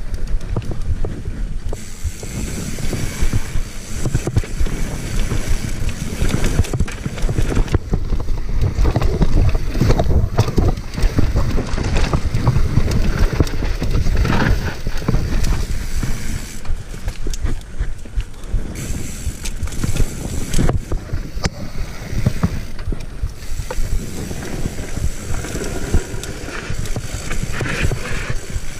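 Mountain bike riding fast down a dirt trail: the tyres rumble and crunch over dirt and rocks, and the bike clatters and knocks over bumps. Wind buffets the microphone.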